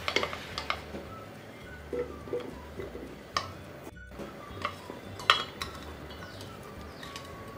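Chopped potato, onion and green chili pieces tipped off a chopping board into a stainless steel mixer-grinder jar, giving scattered knocks and clinks against the metal. The sound drops out for a moment about four seconds in.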